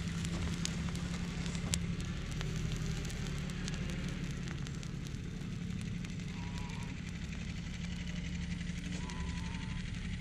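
Molten aluminum crackling as it is poured into a fire ant mound and meets the soil, with scattered sharp pops over a steady low hum.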